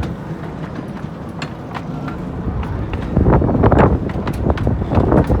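Miniature railway train running on the track: sharp wheel clicks at first, then a loud rhythmic pulsing from about halfway as it comes close.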